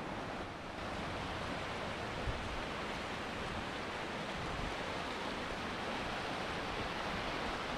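Shallow mountain stream rushing steadily over rocks and stones.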